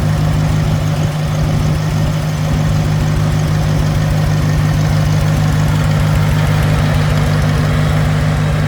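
Engine idling steadily, with a low, even firing rhythm and no change in speed.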